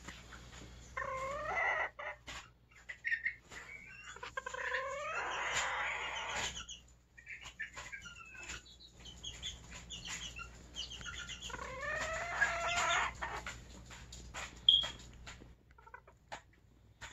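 Serama bantam chickens calling: three drawn-out, pitched calls of a second or two each, about a second in, near the middle and about twelve seconds in, with short soft clicks between them.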